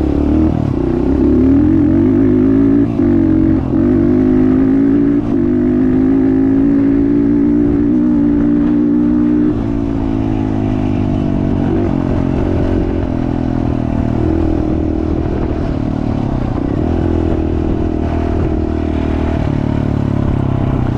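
Small off-road vehicle engine running under varying throttle on a trail, its pitch rising and falling with the throttle, easing back to a lower, steadier note about halfway through.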